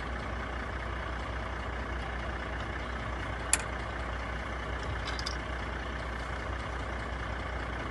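Steady low rumble of a heavy truck engine idling, with one sharp click about three and a half seconds in and a few faint clicks a little later.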